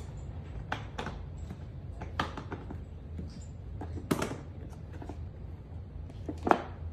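Scattered knocks and clicks of a hard plastic Nanuk case being handled and turned on a stone countertop, about five in all, the loudest near the end.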